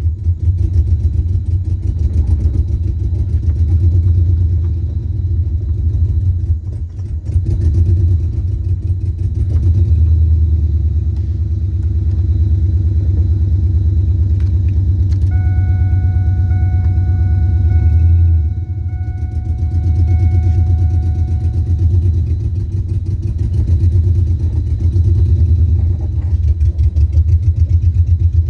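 LS V8 engine of an LS-swapped 2000 Firebird running at low revs with a low, pulsing exhaust note as the car moves slowly under its own power, the sound dipping briefly about seven seconds in and again near eighteen seconds. A faint steady tone sounds for several seconds midway.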